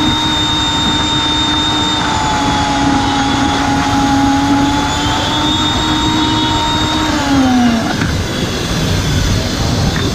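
Electric mixer-grinder blending pomegranate seeds into juice: a steady motor whine that winds down in pitch and stops about eight seconds in, the blend done. Street noise carries on underneath.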